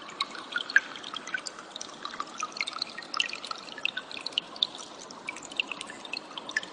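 Cililin birds chirping: a dense, continuous scatter of quick, high, sharp notes from several birds, over a steady hiss.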